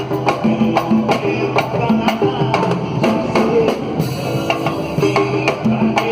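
Live samba band playing: a steady, busy percussion beat of regular strikes over sustained bass and string lines.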